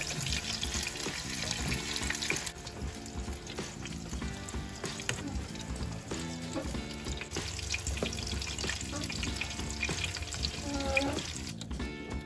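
Background music over kitchen water sounds: the pasta water bubbling and sloshing as it is stirred in the pot, with splashing water in a sink.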